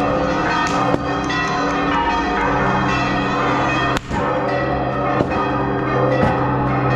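Church bells ringing continuously, several bells sounding at once in an unbroken peal.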